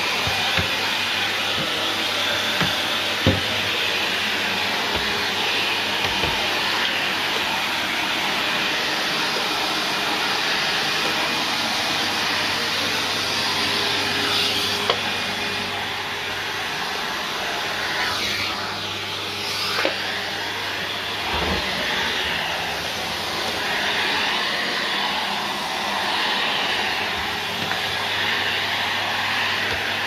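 Taski Vento 8 commercial vacuum cleaner running steadily as its floor tool is pushed over a hard floor, with a few brief knocks.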